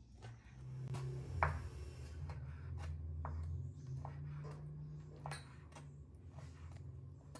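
Chef's knife slicing raw chicken breast on a wooden cutting board, the blade tapping the board with each stroke in short, irregular knocks, over a low hum.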